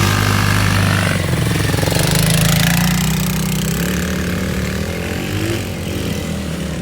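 ATV engine running, its pitch rising about a second in, holding, then easing back down.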